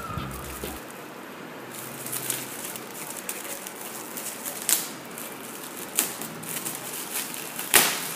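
Crinkling and crackling of a shiny metallic-foil gift bag being handled and pulled open, with a few sharp crackles, the loudest near the end.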